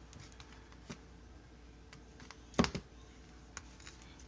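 Light scattered clicks and scrapes of a butter knife spreading butter on toast, with one sharper click about two and a half seconds in.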